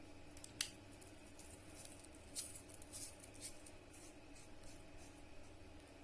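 Small objects handled close to the microphone: one sharp click, then a few seconds of light, crisp clicking and rustling.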